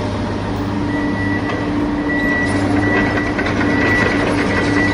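Excavator sound effect: the engine running with a dense rattling rumble. From about a second in, a high reversing alarm beeps repeatedly, roughly one beep every 0.8 s.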